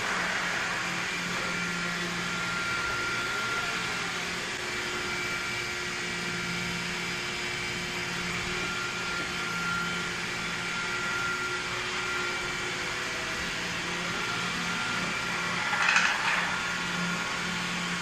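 Roborock E25 robot vacuum running steadily while it cleans, a constant motor hum and fan hiss with a few steady tones. Near the end there is a brief louder swell of higher-pitched noise.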